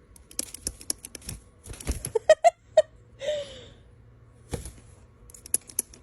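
Pet parrot making a few short squeaky chirps and a brief arching call amid a run of sharp clicks and scratches.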